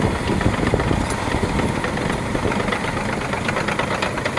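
Caterpillar D6R crawler bulldozer's diesel engine running steadily under load, with a dense, fast clatter, as the machine pushes rock and soil with its blade.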